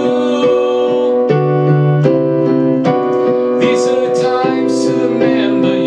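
Electronic keyboard played with a piano sound: sustained chords that change every second or so, under a melody line.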